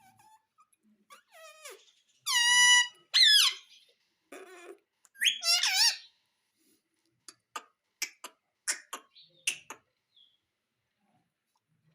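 Indian ringneck parrot calling: a few loud, high-pitched calls between about two and six seconds in, followed by a run of sharp single clicks.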